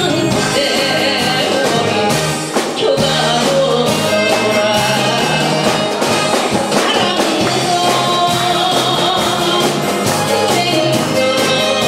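A woman singing a Korean trot song into a microphone over amplified band accompaniment with drums.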